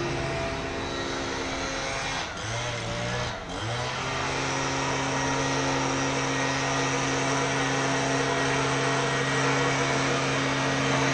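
Small petrol engine running steadily at one pitch. Its pitch dips briefly twice, about two and three and a half seconds in, then it settles back to a steady run.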